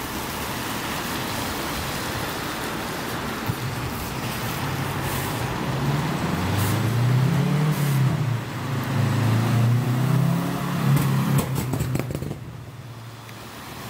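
Enviro400H MMC hybrid double-decker bus pulling away from a stop. A low hum from its drive comes in about six seconds in, rising and falling in pitch over traffic noise, and fades near the end as the bus moves off.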